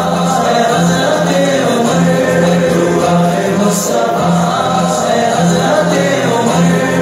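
Devotional song sung by a group of voices over a steady low pulsing beat, about two beats a second.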